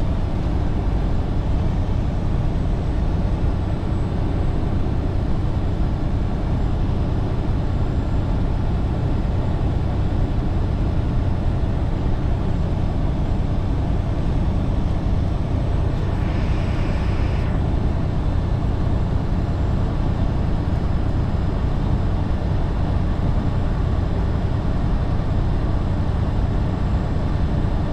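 Steady engine and road rumble inside a moving truck's cab. A brief higher hiss lasts about a second and a half, a little past halfway.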